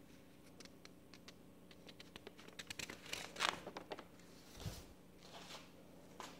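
Sheets of paper rustling and crinkling as a page is lifted and turned over by hand, with small crackles building to a louder swish a little past the middle, then a dull bump and a softer rustle.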